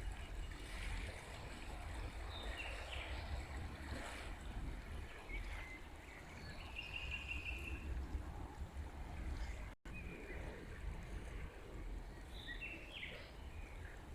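River water flowing with a steady low rumble, while small songbirds chirp now and then above it, including a short trill about seven seconds in. The sound cuts out for an instant just before ten seconds in.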